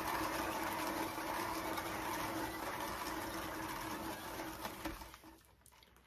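Homemade paint spinner turning a painted canvas with a steady whirring hum, then slowing and stopping about five seconds in.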